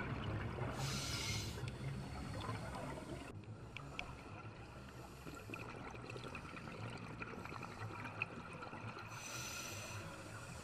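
Underwater sound of scuba divers breathing through regulators: two roughly one-second rushes of exhaled bubbles, about a second in and near the end, over a faint low background.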